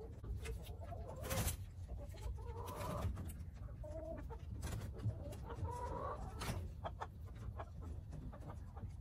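Domestic hens clucking in short, soft calls, with a few sharp taps in between.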